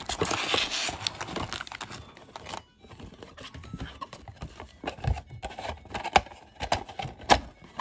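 Foil Pokémon booster packs crinkling and rustling as they are handled, then several sharp taps and knocks as the packs and a cardboard box are set against the tabletop.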